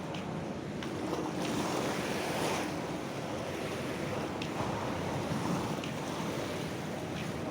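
Sea waves washing onto a beach: a continuous rushing surf that swells louder about a second and a half in and again around the middle.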